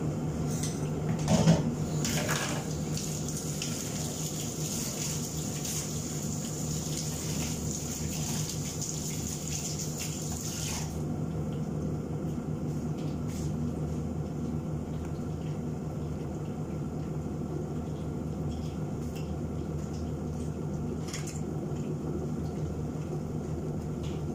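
Chicken frying in oil in a pan on a gas stove: a steady sizzle over a steady low hum. There is a clatter about a second and a half in, and a brighter hiss that stops suddenly about eleven seconds in.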